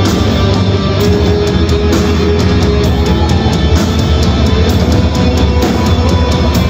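Rock band playing loud: electric guitars over a steady drum beat.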